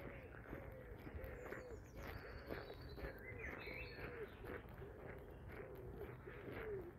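A pigeon cooing in a long run of short low notes, about two a second, with small birds chirping higher up around the middle. Soft footsteps on the path underneath.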